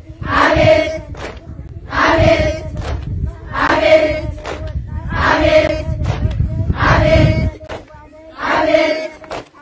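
Large crowd of women chanting a short cry of supplication in unison, "Abet" ('O Lord'), repeated at an even pace about every one and a half seconds, six times. A low rumble lies under the middle stretch.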